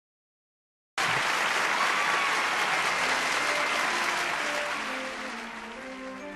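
Applause that starts abruptly about a second in and gradually dies away, while a gentle instrumental introduction rises beneath it.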